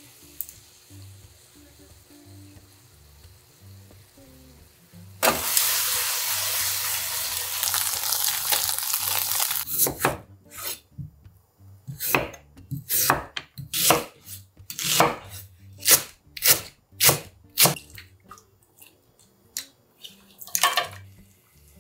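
Soft background music, then a steady hiss for about five seconds that starts and stops abruptly. From about ten seconds in, a kitchen knife cuts through a firm white ingredient onto an end-grain wooden cutting board: about fifteen sharp knocks, irregular, over some eight seconds.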